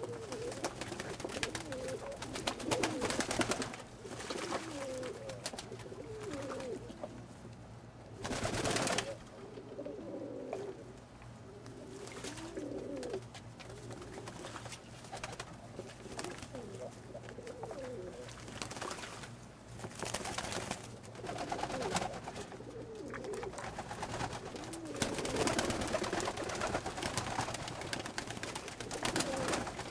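Old German Owl pigeons cooing over and over, with water splashing and wings flapping as the birds bathe in a tub. A loud burst of splashing and flapping comes about nine seconds in.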